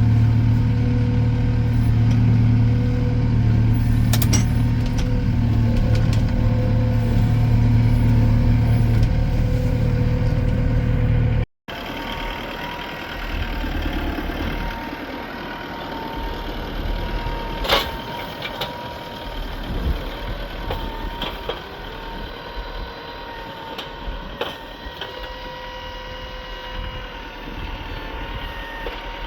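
Farm tractor engine running steadily and loud, close by. After an abrupt cut about twelve seconds in, it gives way to a quieter steady hum with a thin high whine and scattered clicks.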